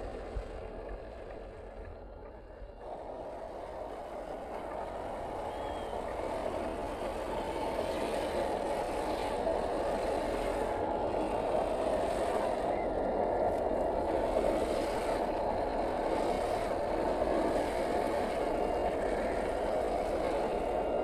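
1/10-scale HG-P411 RC crawler driving over dirt: its brushed 540 electric motor and gearbox whirr steadily, growing louder over the first several seconds as it comes closer.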